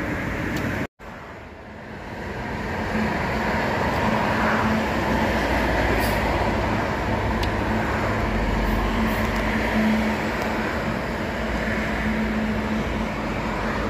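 Road traffic on a multi-lane expressway: a steady roar of tyres and engines from passing cars, with a low engine hum coming and going. The sound cuts out briefly about a second in and builds back up over the next two seconds.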